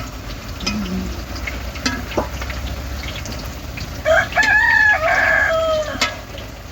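A rooster crowing once, about four seconds in, a single call of about two seconds, with a few faint clicks and taps around it.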